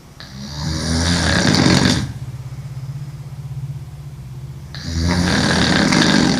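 A woman sleeping on her back snoring heavily: two long, loud snores, the second starting about four and a half seconds after the first.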